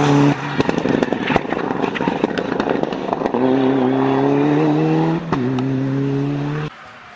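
Mitsubishi Lancer Evolution IX rally car's turbocharged four-cylinder engine coming off the throttle into a bend with a string of sharp pops and bangs. It then accelerates hard with the revs rising, shifts up about two seconds later, and climbs again until the sound cuts off abruptly near the end.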